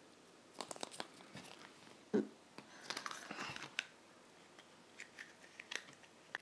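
Faint clicks and crinkling of a yellow plastic surprise egg being handled and pried open, with one louder bump about two seconds in.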